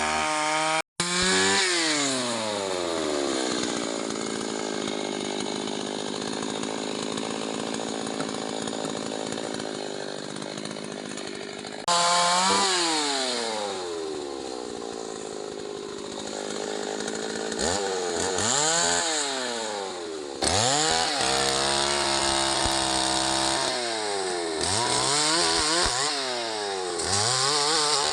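STIHL MS 381 two-stroke chainsaw revving up and down between long stretches of cutting through mahogany, where the engine holds a steadier, lower pitch under load. The sound drops out briefly about a second in and jumps abruptly twice later on.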